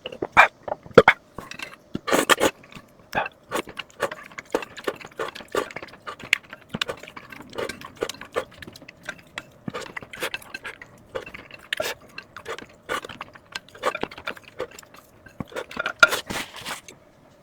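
Close-miked eating sounds: a steady run of chewing and mouth noises mixed with clinks of utensils against dishes. A faint steady hum lies underneath.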